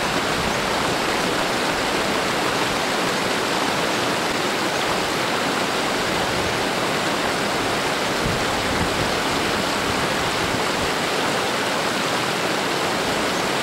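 Shallow stream running steadily over stones and pebbles: an even, unbroken rush of water.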